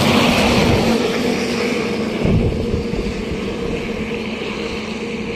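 Truck engine running steadily, a continuous low drone.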